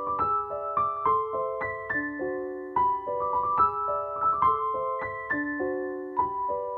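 Background music: a gentle solo piano playing a steady stream of single notes, about three or four a second.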